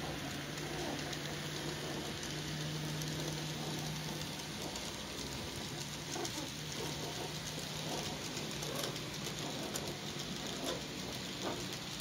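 N gauge model train, a class 56 locomotive hauling a rake of JHA hopper wagons, running along the track: a steady low motor hum with many small irregular clicks and rattles from the wheels over rail joints and pointwork, growing busier in the second half.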